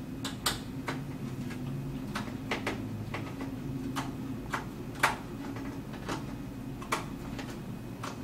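Irregular light clicks and taps, one louder about five seconds in, as the expansion-slot covers at the back of a desktop PC case are worked loose and taken out.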